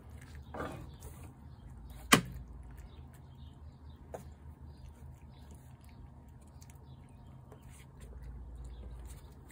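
A single sharp knock about two seconds in, the loudest sound, over faint scattered ticks from a tabby cat eating wet food off a plate.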